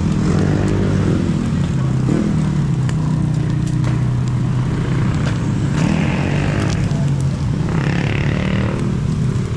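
A small engine running steadily, with a low even hum, amid street noise; two brief hissing swells come about six and eight seconds in.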